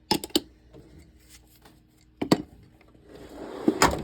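Hand tools and toolbox drawers being handled: a quick run of sharp metal clicks, a loud clunk about halfway, then a drawer running out on its slides and stopping with a clunk near the end.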